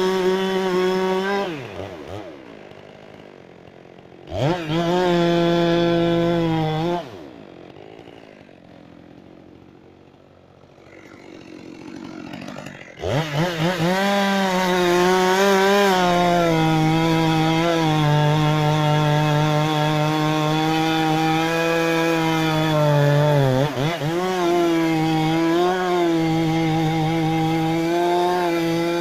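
Two-stroke chainsaw running at full throttle, cutting wood. It eases off early on, revs up briefly for a few seconds, goes much quieter for about six seconds, then runs at a steady high pitch through a long cut with one brief dip in revs near the end.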